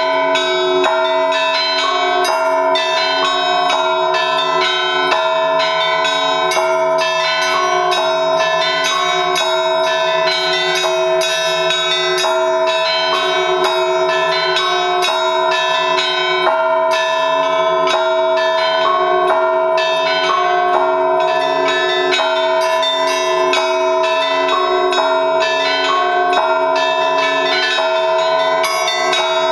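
Russian Orthodox church bells rung as a trezvon in 3/4 time: a fast, unbroken peal of many bells, the strikes following close on one another while their tones ring on and overlap.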